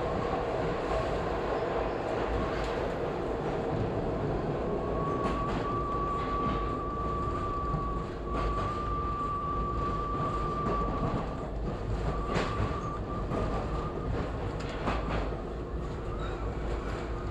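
Toronto subway train running through a tunnel with a steady rumble. About five seconds in, a steady high squeal starts and carries on through most of the rest, and a few sharp clacks come from the wheels over track joints and switches.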